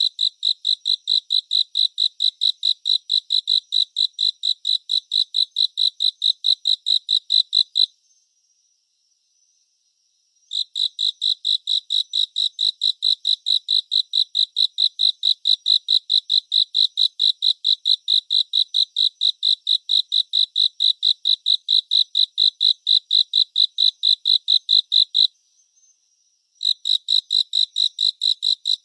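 Cricket chirping in long, even trains of rapid high-pitched pulses, several a second. The chirping stops twice for a couple of seconds, about eight seconds in and again near the end, then starts again, while a faint steady high trill carries on through the pauses.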